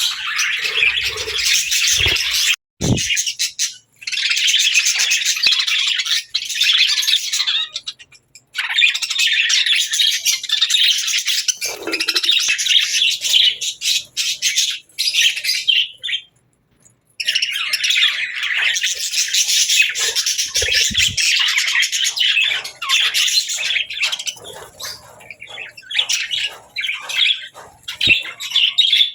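Budgerigars chattering and chirping in a dense, fast warble, with a few brief pauses, the longest lasting about a second just past the halfway point.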